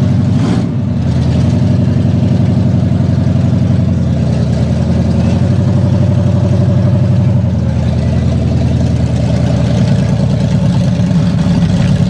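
Lifted GMC mud truck's engine running steadily at low revs as the truck crawls out of a mud pit.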